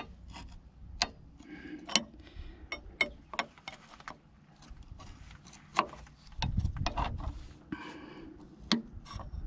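Hand tools working on the steel fitting of a hydraulic cylinder: irregular sharp metal clinks and a couple of short scraping strokes, with a dull rumble of handling about six and a half seconds in.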